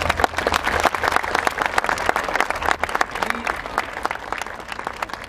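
Crowd applause, many hands clapping, dense at first and thinning out over the last couple of seconds.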